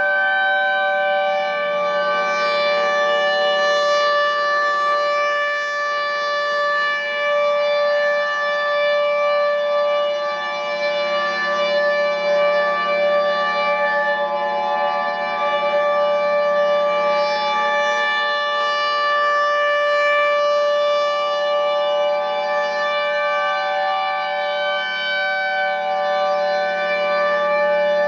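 Federal Signal outdoor warning sirens (Thunderbolt 1000 and 2001-130) sounding a steady tone: several pitches are held together at once, swelling and fading slightly.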